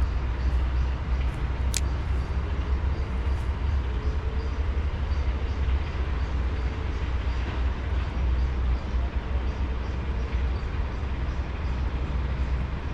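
Strong wind buffeting the microphone: a steady low rumble with a rushing hiss above it.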